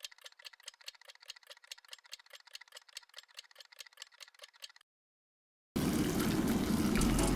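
A rapid, even series of light clicks, about seven a second, for about five seconds, then a short silence; near the end loud music starts suddenly.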